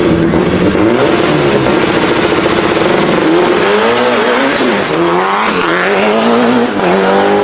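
Turbocharged four-cylinder engine of a Mitsubishi Lancer Evolution running hard. It holds a steady pitch for the first few seconds, then the revs climb and drop several times.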